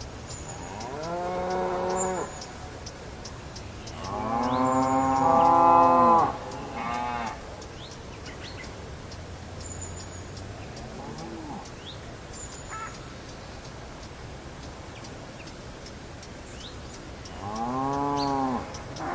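Cattle mooing: five separate moos, the longest and loudest about four seconds in, a short one right after it, and a faint one in the middle. A faint, even ticking runs underneath.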